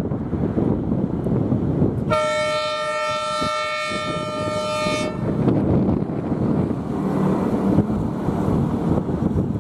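A rail vehicle's horn gives one steady blast of about three seconds, starting about two seconds in and cutting off sharply, over a steady low rumble.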